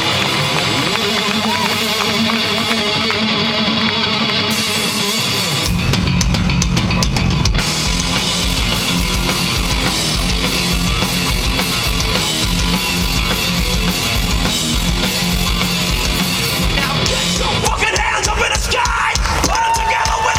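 Hard rock band playing live with distorted guitars, bass and drum kit; the drums and bass come in hard about six seconds in.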